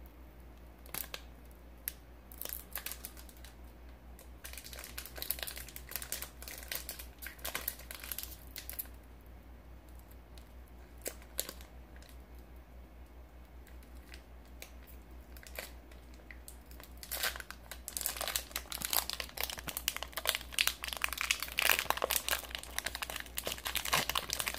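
Foil wrapper of a Pokémon booster pack crinkling and tearing as it is slowly worked open by hand, in scattered crackles that become denser and louder over the last several seconds.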